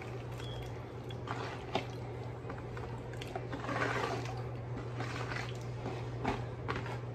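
Raw peeled shrimp being pushed off a plastic cutting board and plopping and splashing into a pot of boiling seasoned water, with a busier run of splashes about four seconds in, over a steady low hum.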